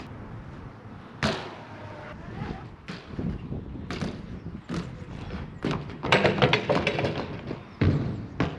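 BMX bike riding on concrete skatepark ramps: tyres rolling, with several sharp knocks and landing thuds and a stretch of rattling from the bike about six to seven and a half seconds in.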